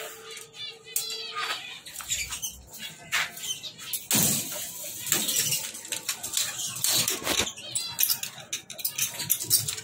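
Caged pet parrots giving short chirps and calls, with two louder rustling bursts about four seconds in and again around seven seconds.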